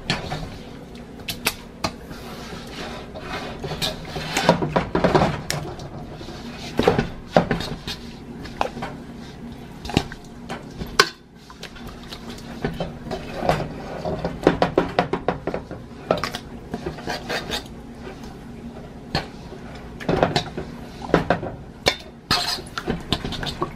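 Metal fork clinking and scraping against a stainless steel mixing bowl while turning seasoned steaks in their marinade: irregular knocks and clicks throughout.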